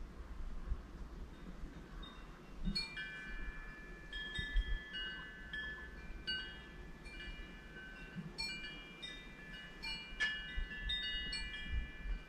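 Wind chime ringing, several clear notes struck at uneven moments and left to ring on. They begin about three seconds in and cluster again around eight and ten seconds in.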